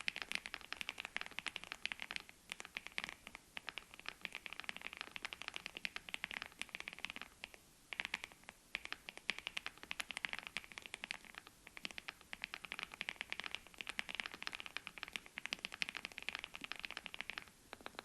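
Fast typing on a mechanical keyboard with Gateron Smoothie linear switches: a dense run of key clacks, with a brief pause about eight seconds in.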